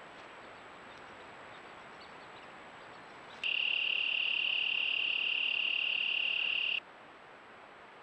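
A cricket trilling: a steady, high-pitched trill that starts abruptly about three and a half seconds in and stops abruptly near seven seconds, over a faint steady hiss.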